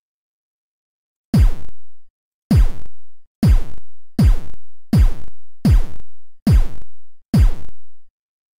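Electronic kick drum sample from a browser drum machine, played eight times, once as each kick step is clicked in. Each hit is a sharp click with a low thump that falls in pitch and dies away within about half a second. The hits begin about a second and a half in, at first unevenly and then about one every 0.8 s.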